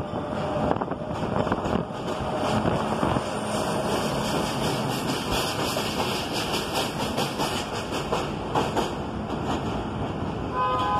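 Diesel work train of yellow locomotives, flat cars and a crane car passing close by on elevated track: a steady rumble with rapid clacking of wheels over rail joints through the middle. A steady pitched tone starts just before the end.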